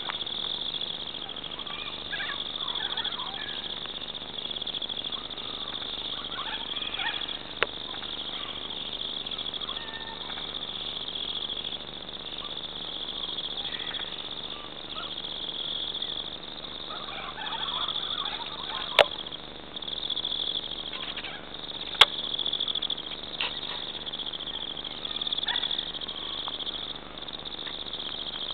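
Steady, high-pitched chorus of insects at dusk, with scattered short bird calls and a few sharp clicks, the loudest two in the second half.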